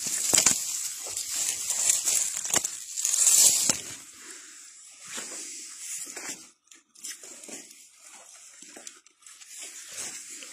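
Footsteps and brushing through dry leaves, pine needles and twigs on a forest floor, with a few sharp snaps; loud for the first few seconds, then quieter scattered rustles.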